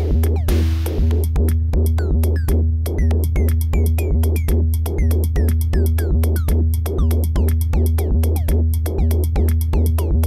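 Electronic percussion from a eurorack modular synthesizer: a steady kick about twice a second under a low bass drone, with clicky hits and short falling-pitch blips. Noisy hi-hat-like hits play at first and drop out about a second in.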